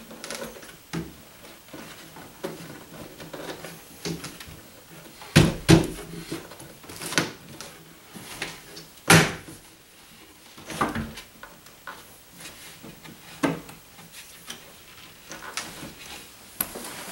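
Irregular knocks and thumps of particleboard furniture panels as a desktop is pressed and knocked into place on its pedestals, with the loudest knocks about five and a half and nine seconds in.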